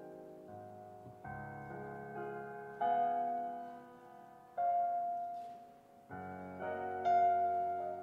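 Soft piano music: slow chords, a new one struck every one to two seconds and left to ring and fade.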